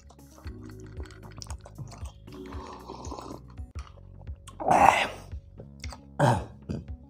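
Background music with a steady beat. Near the end a person clears their throat twice, the first time longer and louder.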